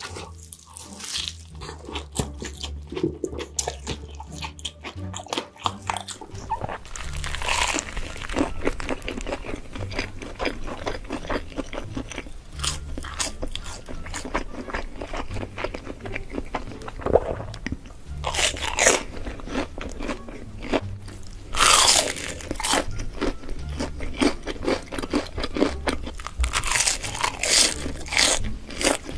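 Crisp food being bitten and chewed close to the microphone: continuous crunching with several louder crunchy bites spread through.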